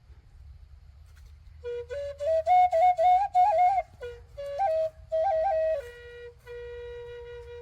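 Solo flute playing a slow melody with quick ornamental turns, entering about a second and a half in and ending on a long held note. A faint low rumble lies underneath.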